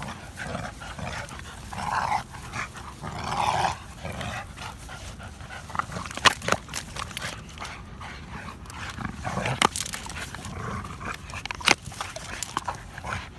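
Dogs shaking and worrying a chew toy, with a low rumbling growl throughout and scattered sharp clicks and knocks from about halfway on.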